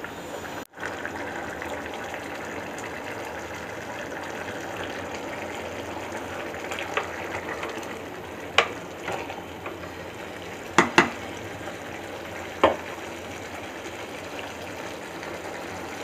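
A pot of rice and split green moong dal khichdi boiling in an aluminium pot, a steady bubbling sizzle as the water boils down. From about halfway through, a spoon knocks sharply against the pot a few times while stirring.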